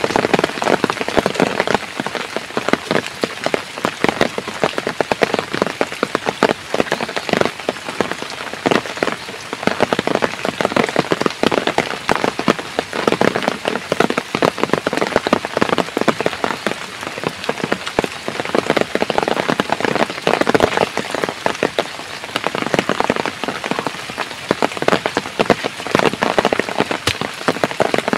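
Heavy rain falling, with a dense, steady crackle of drops striking a nearby surface.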